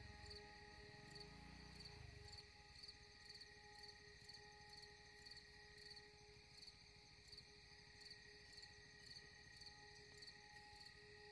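Faint, high-pitched insect chirping, a cricket-like pulse about twice a second, over quiet background music with steady held tones. A low rumble fades out about two seconds in.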